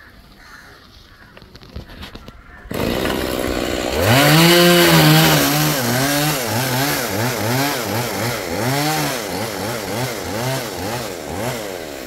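Stihl chainsaw running loud from about three seconds in. From about four seconds its engine revs rise and dip over and over, two to three times a second, as the saw works through wood, then ease off near the end.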